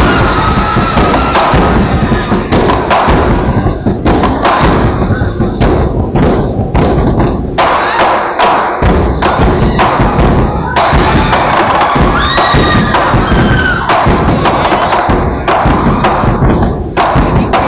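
Ensemble of large tacked-head barrel drums beaten with sticks, a loud, dense stream of deep strikes played together in rhythm.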